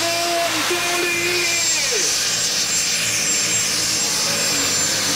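The DAF diesel engine of a pulling tractor running hard under load as it drags the weight sled: a steady, loud engine noise, made rough and distorted by a faulty microphone. About two seconds in, a pitched tone slides downward.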